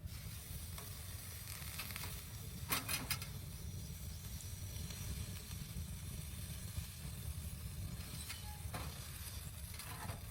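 Blizzard wind rumbling on the microphone with a steady hiss of blowing snow, broken by a few short crackles about three seconds in and again near the end.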